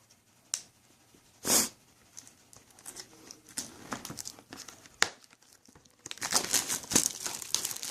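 Packaging of a boxed card collection being handled and opened: scattered clicks and rustles, a short loud rip-like burst about a second and a half in, and dense crinkling near the end.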